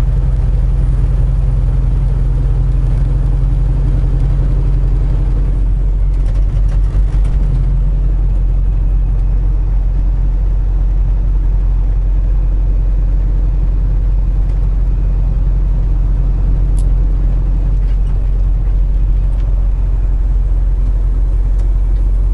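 Semi truck's diesel engine running steadily, heard from inside the cab. Its low tone drops about six seconds in, with a few faint clicks around then.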